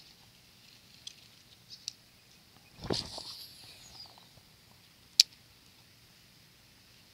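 A cast with a DOYO Urano G3 baitcasting reel: a rush as the rod swings, then the spool's whir falling in pitch as it slows. About two seconds later comes a single sharp click, the loudest sound.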